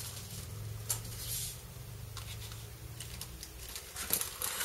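Hands handling paper craft supplies and plastic-packaged embellishments on a cutting mat: light rustling with a few soft taps and clicks, two of them close together near the end.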